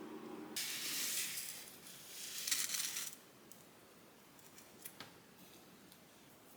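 Two bursts of hissing, each about a second long, after a steady low hum cuts off about half a second in; a couple of faint ticks follow near the end.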